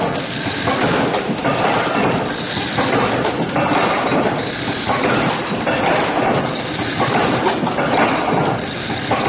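Automatic wire-bending machine forming steel G hooks, running with a continuous metallic clatter. The clatter swells in a regular cycle roughly every second and a quarter, one swell for each hook formed.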